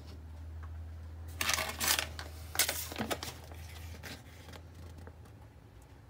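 Two short bursts of rustling or crinkling, as of a loose item or packaging being handled, over a low steady hum that fades near the end.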